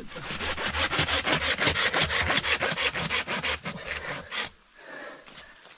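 Hand saw cutting through a tree branch in quick, even back-and-forth strokes that stop about four and a half seconds in.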